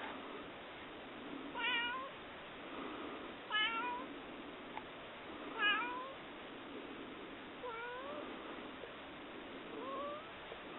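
Domestic cat meowing five times, about two seconds apart, each meow rising in pitch at the end; the third is the loudest.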